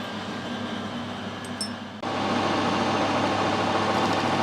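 Metal lathe turning a brass union: a low steady hum, then about two seconds in the machine sound steps up abruptly to a louder steady run with a constant whine.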